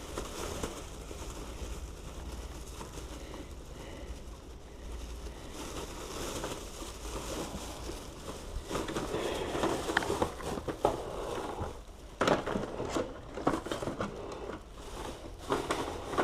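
Crinkling and rustling handling noise with scattered sharp clicks and knocks, busier in the second half, over a steady low hum.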